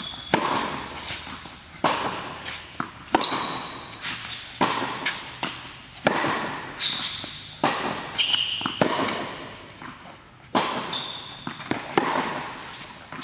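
Tennis rally on an indoor hard court: sharp racket strikes and ball bounces about every second or so, each echoing in the hall, with short high squeaks of tennis shoes on the court surface in between.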